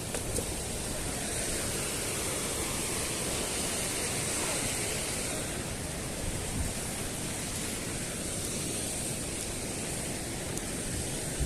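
Steady rushing of white water in a gorge: a mountain stream and its falls.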